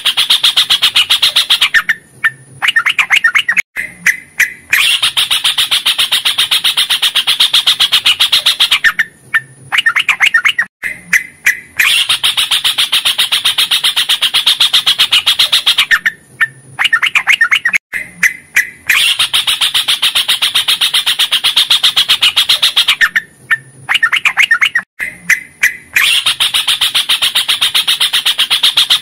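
Yellow-vented bulbul (trucukan) singing. Long runs of fast, closely packed notes, several seconds each, alternate with short breaks of a few separate notes, the pattern recurring about every seven seconds.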